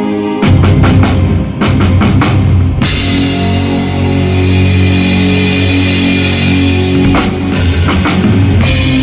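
Rock drum kit with Zildjian K cymbals, played over a band track. The drums come in about half a second in with a run of hits, then a long crash-cymbal wash rings over held chords, and a steady beat starts again near the end.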